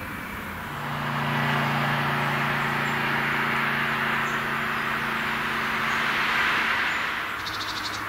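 A vehicle passing with a steady engine hum over a rushing noise. It swells up in the first second and dies away about a second before the end.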